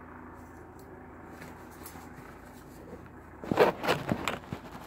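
Handling noise: a quick cluster of sharp clicks and knocks about three and a half seconds in, after a stretch of faint steady hum.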